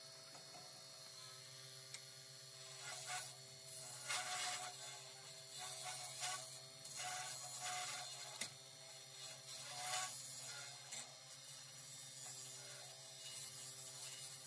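Wood lathe running with a steady hum while a hand-held turning tool cuts into the end of a spinning Jatoba workpiece, making short, irregular scraping cuts, about half a dozen of them, as a slight recess is turned into the vase's base.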